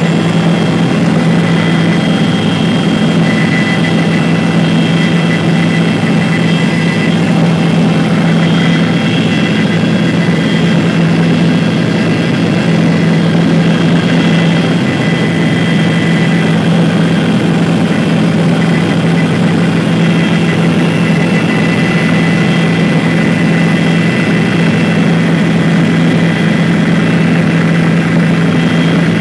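Helicopter in flight heard from inside the cabin: a loud, steady drone of rotor and engine with thin high whining tones over it.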